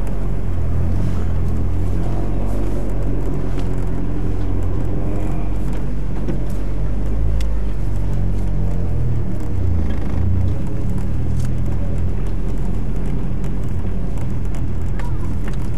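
Car engine running at low speed under light throttle, heard from inside the cabin as the car rolls slowly, a steady low drone.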